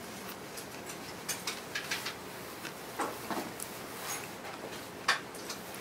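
Scattered light clicks and clinks of metal chopsticks against a stone pot and side-dish bowls, over a steady restaurant background noise.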